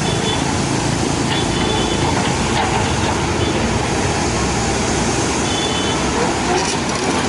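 Komatsu 130F hydraulic excavator's diesel engine running steadily under working load, with a few brief high-pitched tones at its start, about a second and a half in, and near the end.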